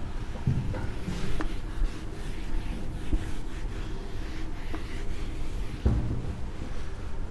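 Whiteboard duster rubbing across a whiteboard in wiping strokes, with a few dull knocks.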